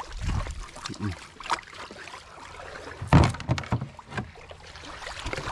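Irregular knocks and thumps on the hull of an outrigger boat as a squid gill net is piled into it, the loudest thump about three seconds in.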